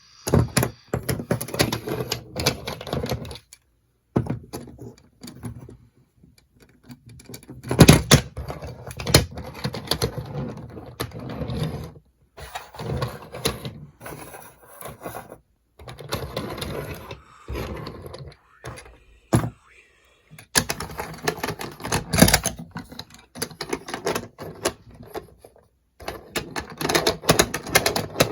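TMNT Switch Kick Skaters toy skateboards rolling and clattering, in irregular bursts of wheel rattle with sharp clicks and knocks, broken by short silent gaps.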